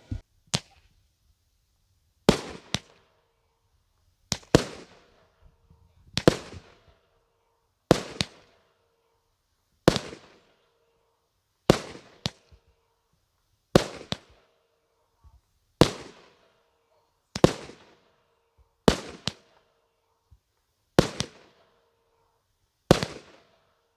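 A 25-shot Thunderking salute cake firing at a slow pace, about one shot every two seconds. Each shot is a launch pop followed a fraction of a second later by a loud salute bang, with a short crackling tail from the crackling gold effect.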